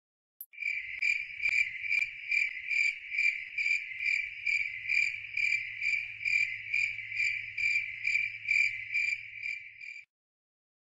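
Cricket chirping steadily, about two and a half evenly spaced chirps a second, cutting off suddenly near the end.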